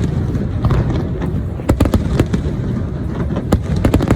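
Aerial fireworks exploding: a quick, irregular series of sharp cracks and bangs over a continuous low rumble.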